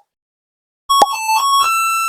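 Electronic beeping tune, starting about a second in: a few quick stepped notes with a click, then one long held higher note.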